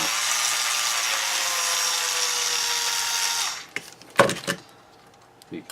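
Electric screwdriver running for about three and a half seconds, its pitch sagging slightly, as it backs out the last case screw, then stopping abruptly; a single sharp click follows shortly after.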